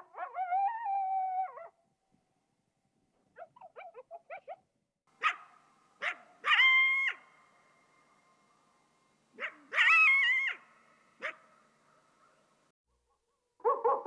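Coyote vocalizing in a string of separate calls: a wavering yelp, a quick run of short yips, then sharp high barks and yelps that trail off in an echo. A falling howl begins near the end.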